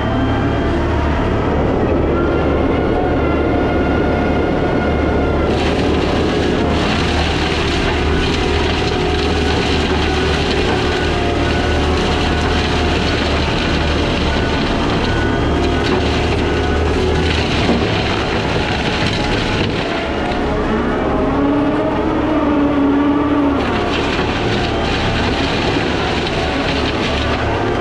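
Case skid steer's engine running under load, driving a Shearex mulching head whose spinning drum gives a whine that shifts in pitch. Bursts of harsher cutting noise come and go, starting about five seconds in.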